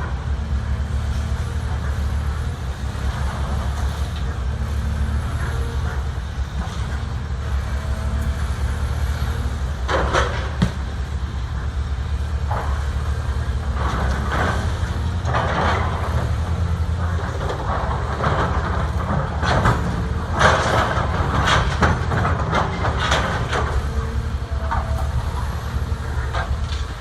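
Diesel engine of a Caterpillar machine running steadily, with a series of crashes and clanks as a wrecking ball strikes concrete: one strike about ten seconds in and a cluster of strikes in the second half.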